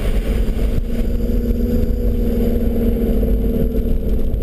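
Nissan Patrol GR Y61 4x4 driving on a dirt road, heard from inside the cab: a steady engine drone over a low rumble.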